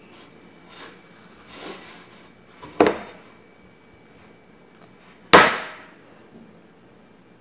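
A ceramic plate knocking against the tabletop as it is nudged with the face: a few separate knocks, a sharp one near three seconds in and the loudest a little after five seconds.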